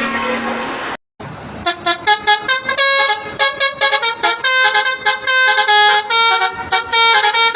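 Bus telolet horn, a multi-trumpet musical air horn on a bus: first a held chord, then after a short break about a second in, a fast tune of short, changing notes tooted several times a second.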